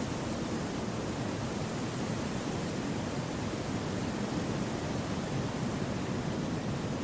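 Wind rushing through forest trees: a steady, even hiss that doesn't rise or fall.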